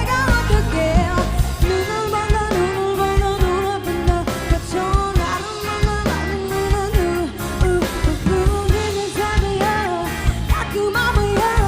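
Live band playing a pop-rock cover: drum kit and guitar under a held, wavering melody line.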